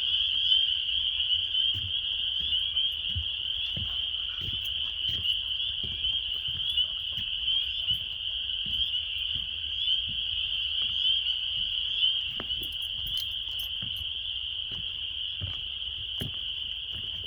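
A dense breeding chorus of many frogs calling together: a steady, high-pitched mass of fast trills.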